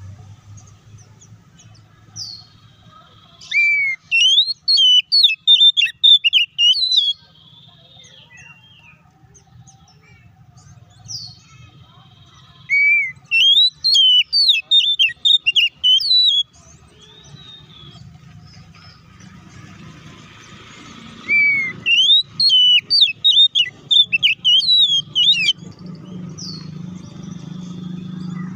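Oriental magpie-robin (kacer) singing three loud bursts of rapid, varied whistled notes, each about three to four seconds long, with short pauses and a few single notes between them. A low rumble rises in the background near the end.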